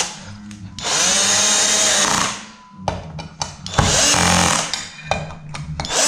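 Cordless drill driver running in two bursts, each about a second and a half, as it drives screws through a metal blind bracket. Its pitch wavers during each burst, with small clicks in the pauses between.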